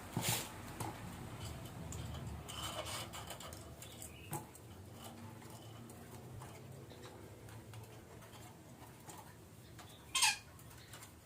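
Red-breasted parakeet (betet) calling: a few short squawks, the loudest a falling call near the end.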